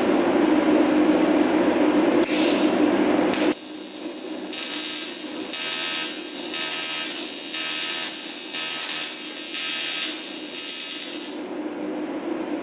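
TIG welding arc on cast aluminum: a harsh, hissing crackle that starts a few seconds in after a brief high-pitched start and cuts off abruptly near the end. It pulses a little faster than once a second under a steady machine hum. The metal is still dirty, giving a peppered tack.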